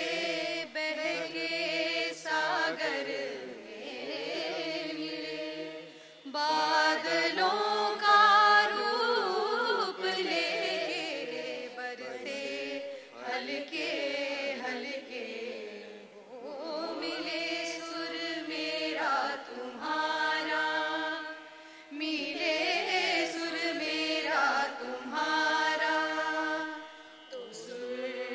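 A group of women and a girl singing a Hindi song together in phrases of a few seconds, with brief breaks for breath, over a low sustained accompaniment.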